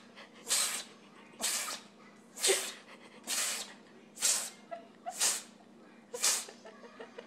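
Domestic cat making short, breathy, hiss-like huffs, seven in a row at about one a second.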